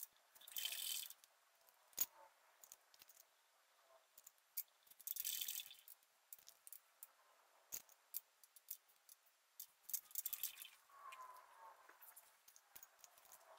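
Hand tools and a feeler gauge working the rocker arm adjusters on a small-block Ford's shaft rocker system while the exhaust valve lash is set: three short scrapes and scattered light metal clicks, all faint.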